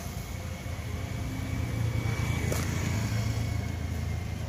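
A steady low rumble, growing louder about a second in, with one sharp click about halfway through.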